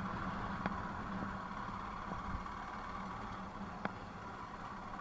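Royal Enfield Himalayan motorcycle's single-cylinder engine running steadily while riding off-road, with two sharp clicks, about a second in and near the end.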